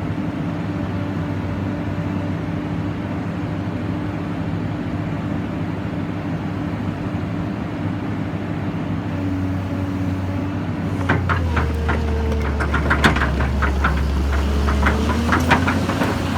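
Excavator's diesel engine running steadily. About eleven seconds in, its note deepens and grows louder, and a run of metallic clanks and clicks follows.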